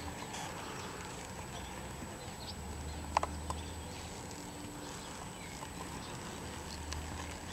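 A saddled horse walking on soft dirt, its hoofbeats muffled, with a couple of sharp clicks about three seconds in.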